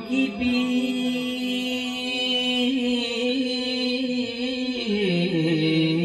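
A man singing a naat, holding one long note that then slides down to a lower, held note near the end.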